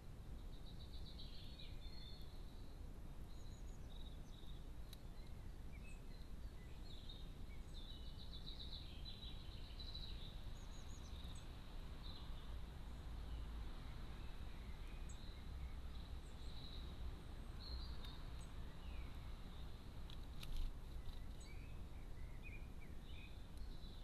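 Small garden songbirds chirping and trilling on and off over a steady low outdoor rumble, with one brief knock about twenty seconds in.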